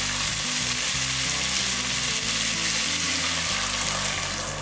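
Water poured from a steel tumbler onto rice fried in hot ghee in a pressure cooker, hissing and sizzling steadily as it hits the hot pan, easing slightly near the end.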